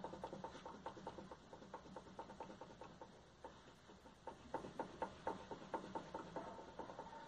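Faint, rapid clicking and knocking from a Hyundai HB20's worn stabilizer (sway bar) link being rocked back and forth by hand, with a short lull near the middle and quicker clicks after it. The small play in this fairly new link makes the knock that, inside the car, sounds like a worn steering rack.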